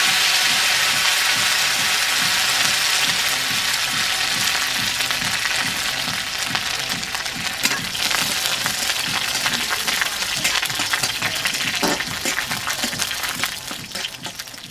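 Neem leaves frying in hot mustard oil in an aluminium karai, sizzling loudly at first and slowly dying down. A spatula scrapes and taps the pan now and then as the leaves are stirred.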